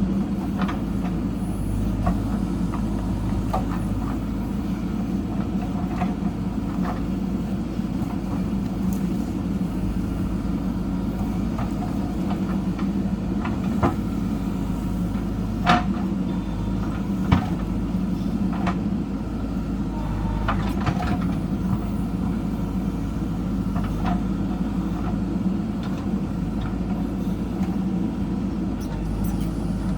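JCB backhoe loader's diesel engine running steadily at work, with occasional short sharp knocks, a few of them louder midway through.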